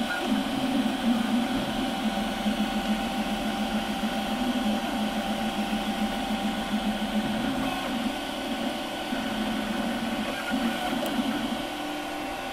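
Desktop FDM 3D printer running a print: its stepper motors whir and whine steadily with shifting tones as the print head moves back and forth over the bed.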